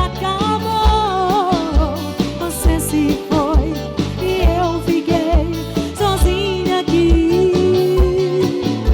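Live band music: a wavering lead melody over bass and drums with a steady beat.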